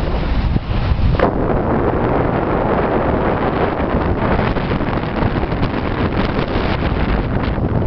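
Wind buffeting the microphone on a sailboat's deck: a loud, steady rushing with a heavy low rumble and gusty crackle, and one sharp knock about a second in.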